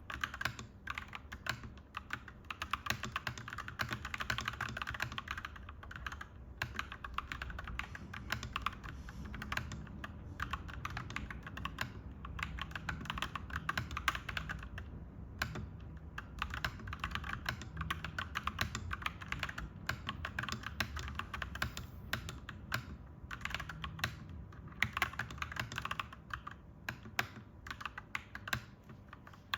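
Clacky mechanical keyboard being typed on in fast, continuous runs of keystrokes, broken by a few brief pauses, over a steady low background rumble.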